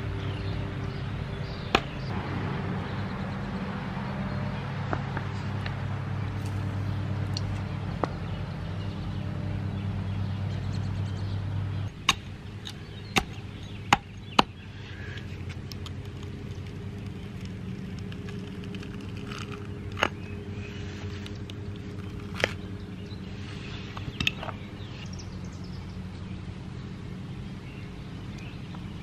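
Sharp knocks of a metal hand tool chipping and prying into a wooden log, a handful of single strikes spaced a second or more apart, mostly between about twelve and twenty-five seconds in. Under them runs a steady low hum, which drops a little about twelve seconds in.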